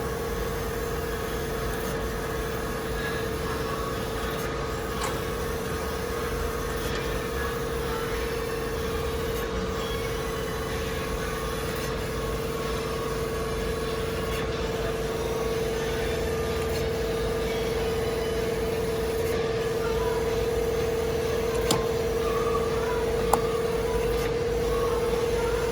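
Kent KGS-300AHD automatic hydraulic surface grinder running: a steady machine hum with a constant mid-pitched tone, growing slightly louder in the second half. A couple of sharp clicks come near the end.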